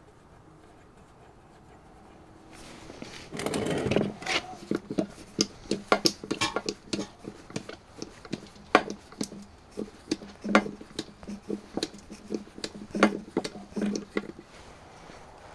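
Hand-lever bucket pump being stroked to push oil into a truck's rear axle: a run of irregular clacks from the handle and plunger, starting about three seconds in.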